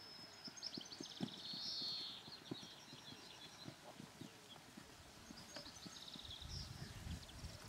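Ponies' hooves thudding irregularly on grass as they canter around a paddock, with high twittering birdsong over them and a low rumble coming in near the end.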